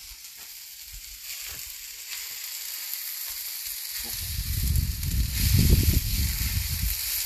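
Raw chicken strips sizzling as they are pushed onto a hot cast iron griddle beside onions and peppers, with light scrapes of a wooden spatula. The sizzle gets stronger about a second in. A low rumble, the loudest sound, comes in about four seconds in and lasts a couple of seconds.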